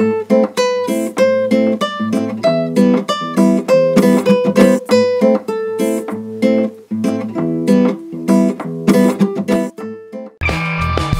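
Background music of plucked acoustic guitar, picking out a run of notes. About ten seconds in it cuts abruptly to a different, fuller track.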